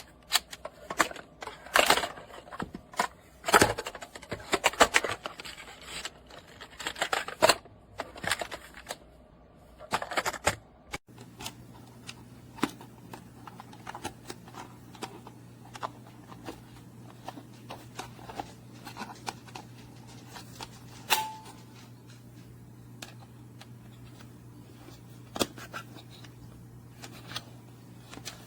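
Toddler busy board activity cube being handled, its snaps, buckles and parts clicking and knocking in a dense run for about ten seconds. After that come sparser clicks over a low steady hum.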